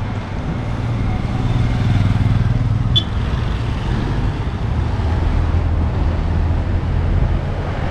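Street traffic with engines running steadily, and a motor scooter passing close by, its engine note dropping as it goes past. A short high click sounds about three seconds in.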